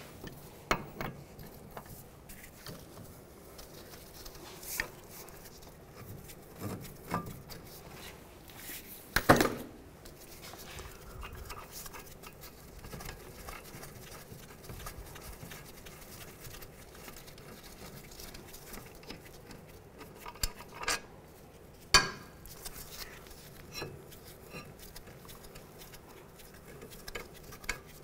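Scattered metal clinks and knocks from a wrench and the steel brake caliper bracket as the bracket is unbolted and worked off the brake rotor. There are a few scattered strikes, the sharpest about nine seconds in and again about twenty-two seconds in.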